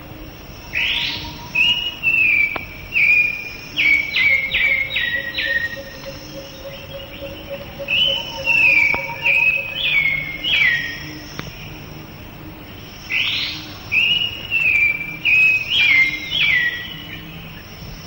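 Scrub bulbul calling: three bouts of quick, downward-slurred whistled notes, over a steady high insect drone.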